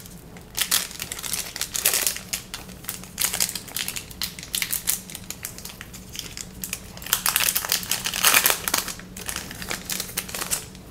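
Foil trading-card pack wrapper crinkling in irregular bursts as it is opened and handled, loudest about seven to nine seconds in.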